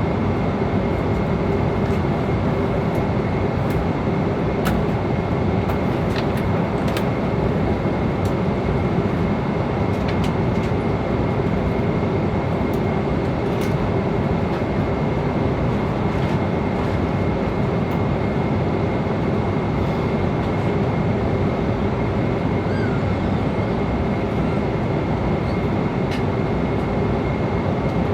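Airliner cabin noise in flight: a steady rush of airflow and engine hum, with a faint steady high whine and a few faint clicks.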